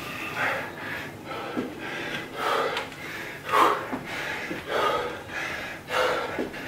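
A man breathing hard and fast while exercising, with short forceful breaths about once a second: he is out of breath from high-intensity effort.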